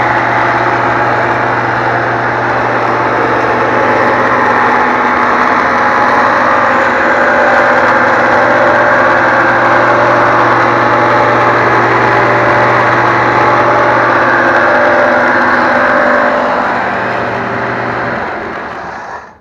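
Homemade 6-by-48-inch belt sander running steadily, its belt driven by a table saw's 2-horsepower motor; the sound eases off over the last few seconds, then stops abruptly.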